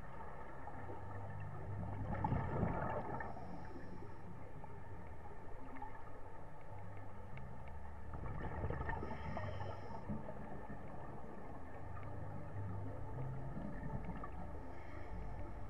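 Underwater scuba breathing through a regulator: exhaled bubbles gurgle in bursts about two seconds in, around nine seconds and near the end, over a steady low rumble.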